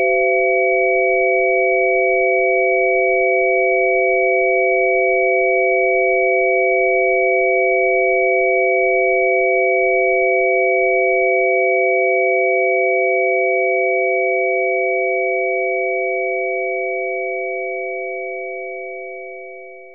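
Steady electronic sine tones: a low chord of pure pitches with a fainter high tone above, held unchanged, then slowly fading out over the last several seconds.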